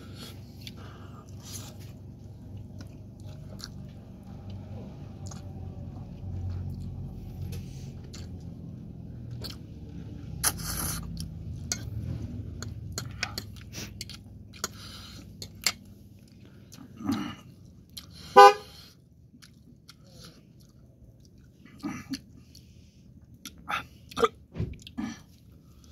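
Close-miked chewing and slurping of spicy instant noodles, with scattered short clicks of metal forks against the plate. About two-thirds of the way through comes a brief, loud pitched toot, the loudest sound here.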